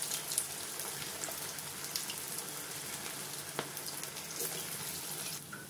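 Vegetable manchurian balls deep-frying in hot oil in an iron kadhai: a steady bubbling sizzle with a few faint pops.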